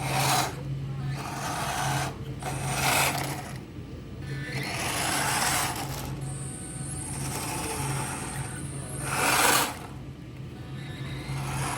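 Small electric motors of radio-controlled construction models whirring in repeated short bursts as the controls are worked, over a low hum that drops in and out.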